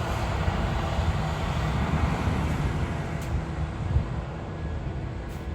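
Heavy farm machinery running steadily in a low engine rumble, with a small knock about four seconds in.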